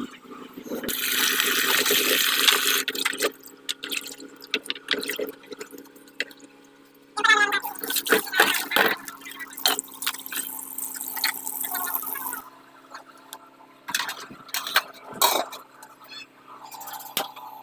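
Tap water running into a pot in a kitchen sink, with splashing as chicken feet are rubbed clean in the water. A second spell of tap water pours into an aluminium pot from about seven seconds in and stops suddenly at about twelve seconds. Clinks and knocks of a metal pot being handled follow near the end, over a faint steady hum.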